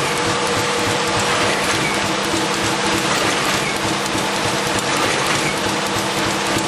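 IBIS Smart-binder bindery machine running, sheets feeding through it. A steady, dense mechanical clatter of rapid small clicks sits over a constant hum.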